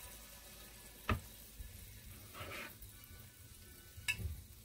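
Pholourie batter balls frying in hot oil with a steady sizzle. There are two sharp knocks, the loudest about a second in and another near the end, as the metal batter scoop strikes the pot.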